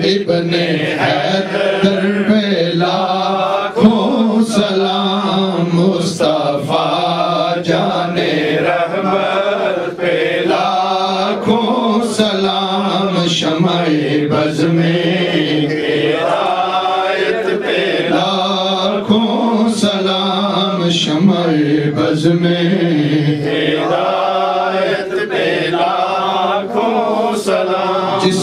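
A solo male voice chants an unaccompanied Urdu devotional salam in a continuous melodic line, with long held notes. A steady low drone sounds beneath it throughout.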